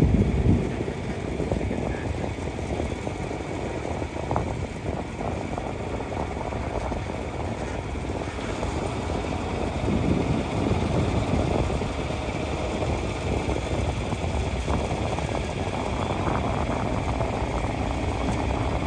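Farm tractor engine running steadily as it tows a hay wagon, a continuous low rumble.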